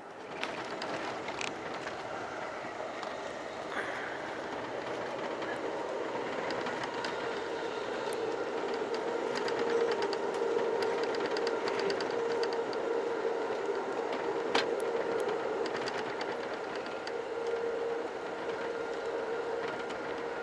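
Pacific Surfliner passenger train running along the track, heard from on board: a steady running noise with a held hum and scattered short clicks.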